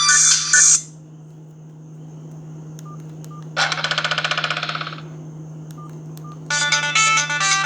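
Sony Ericsson ringtone playing through a Verykool S135 phone's speaker cuts off under a second in. Then come a few faint short key beeps, a buzzy tone lasting about a second and a half in the middle, and the next ringtone's melody starting near the end, over a steady low hum.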